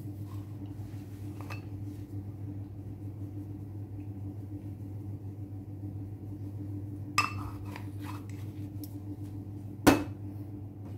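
Kitchen handling sounds over a steady low hum: a few faint knocks, a short rustling scrape about seven seconds in, and near the end a sharp single click as a stainless-steel pepper shaker is set down on the countertop, the loudest sound.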